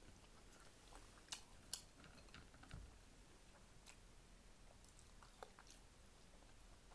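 Faint close-up chewing of cheeseburger and fries, with scattered soft mouth clicks and smacks; two of them stand out a little about one and a half seconds in.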